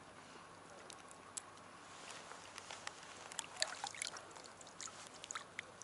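Faint small splashes and trickling drips of water as a mesh keep net is dipped and handled at the water's surface, with a scatter of light ticks and drips from about three seconds in.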